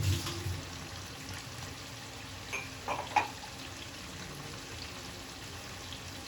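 Chicken frying in a pan: a steady sizzle, with a few short clicks near the middle.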